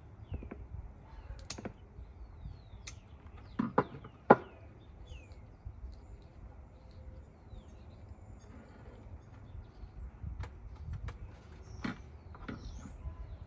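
Handling noise from gloved hands working succulent rosettes and potting soil in a pot: rustles, small clicks and knocks, the two loudest knocks a little under four seconds in. Short bird chirps come and go over a low background rumble.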